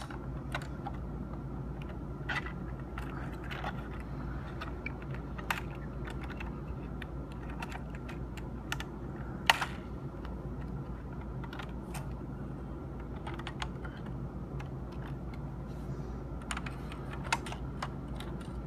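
Scattered light clicks and taps of hands handling a 1/18 diecast model car and a black plastic packaging piece. The sharpest clicks come at the start and about halfway, over a steady low hum.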